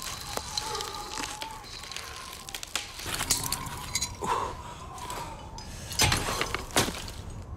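A few sharp clinks and knocks scattered over a faint steady tone, the two loudest strikes near the end.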